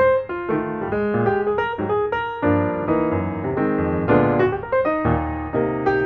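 Background piano music, a steady run of short notes and chords.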